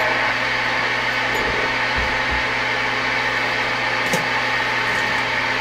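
CB radio receiver on an open channel between transmissions, giving a steady static hiss with a low hum under it.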